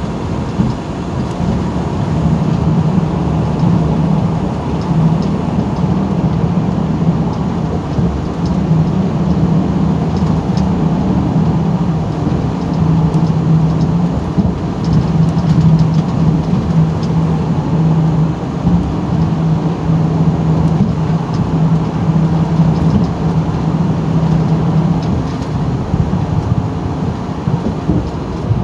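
Inside a semi truck's cab at highway speed: the truck's diesel engine drones steadily over the rumble of tyres on the road. The low drone eases a little near the end.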